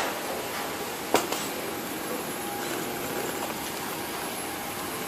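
Steady airport apron noise: a constant hiss with a faint steady whine, broken by a sharp knock about a second in and a smaller one just after.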